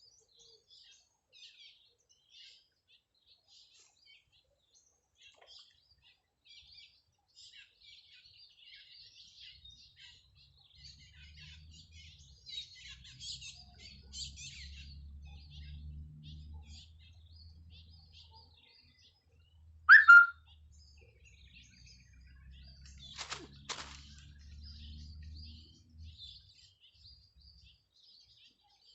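Small birds chirping and twittering continuously. A faint low hum runs through the middle stretch, and one short, loud, high sound comes about twenty seconds in, followed a few seconds later by a click.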